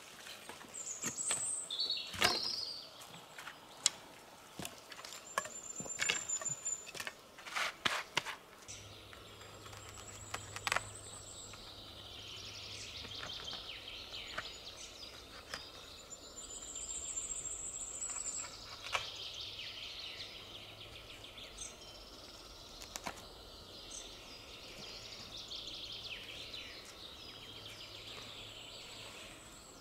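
Woodland birds singing, with high chirps and trills throughout. Dry twigs crack and snap in a quick series over the first several seconds as sticks are handled.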